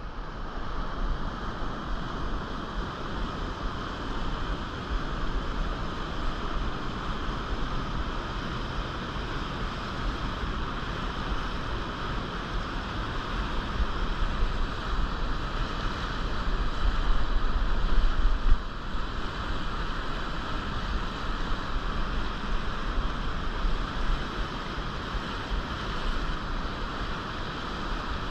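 Rushing whitewater of a river tumbling over rocks and spilling over a low dam, a steady roar that swells a little louder past the middle, with wind rumbling on the microphone.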